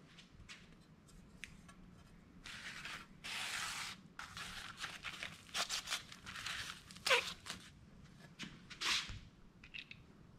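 Plastic packing sleeve rustling and crinkling as a metal print is slid out of it, in several stretches, with a few light clicks.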